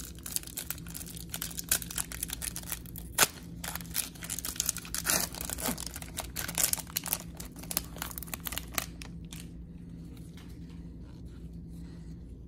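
The wrapper of an NBA Hoops trading card pack crinkling and tearing as gloved hands rip it open, with one sharp crackle about three seconds in. The crinkling dies away about nine and a half seconds in.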